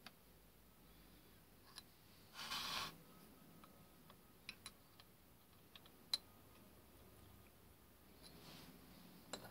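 Near silence broken by a few light clicks and a brief scrape as a steel pin punch is handled and set into the screw holes of a steel bracket on a dividing head. The sharpest click comes about six seconds in.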